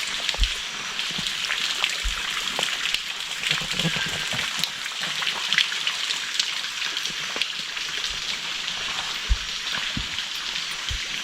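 Amazon rainforest ambience: a dense, steady patter and crackle like rain on leaves, with a few soft low thumps.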